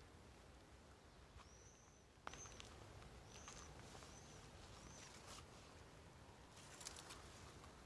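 Five faint, short, high-pitched squeaks from a small animal, each an arched note, about one a second, with a light tap just before the second and a brief rustle near the end.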